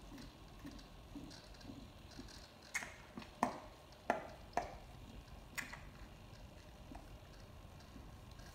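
Lion cub suckling milk from a feeding bottle's rubber teat: soft rhythmic sucks about twice a second. From about three seconds in, a handful of sharp wet clicks and smacks from its mouth on the teat are the loudest sounds.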